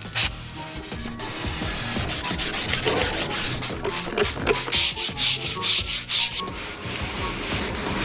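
Rough rubbing strokes against a surface in quick repeated passes, the sound of hand-working an old car's interior. The strokes come thickest in the middle.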